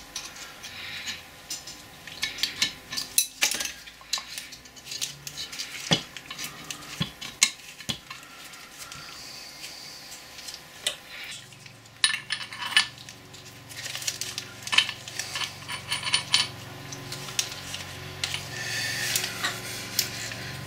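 Steel lathe parts (gears, pins and shafts) clinking and tapping against the cast-iron Boxford lathe apron housing as they are fitted by hand, in irregular sharp metallic clicks. A low steady hum comes in about halfway through.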